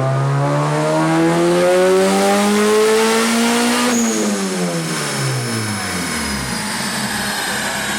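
Turbocharged Honda B18B1 four-cylinder on a dyno pull, its revs climbing steadily for about four seconds, then the throttle lifts and the revs fall away quickly, with a faint high whine falling along with them.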